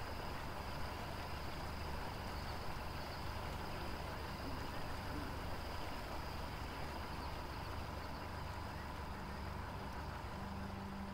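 Steady low drone of a boat engine, with an even hiss of river ambience over it.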